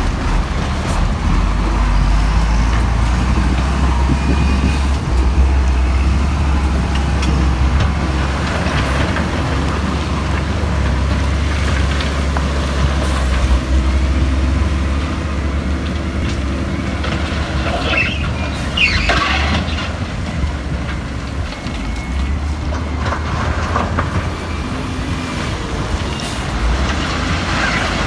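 Diesel engine of heavy earthmoving machinery running steadily with a deep rumble, with a few short squeals and clanks a little past halfway.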